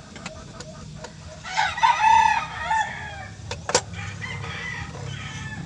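A rooster crowing once, a pitched call of about a second and a half beginning about a second and a half in, over a steady low hum, with a few sharp clicks.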